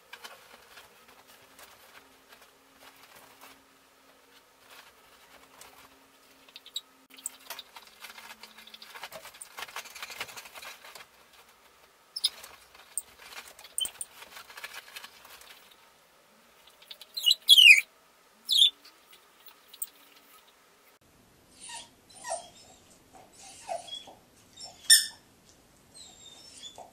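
A labradoodle left home alone digs and paws at a pile of blankets on a bed, the bedding rustling and scratching. A little past the middle he gives two loud, high whines that fall in pitch. Near the end come several shorter whimpers as he settles on the pile, typical of a dog that is lonely and misses its owners.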